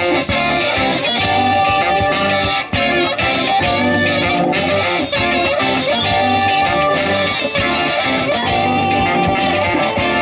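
Live electric blues band playing an instrumental intro: electric guitars over bass and a steady drum beat.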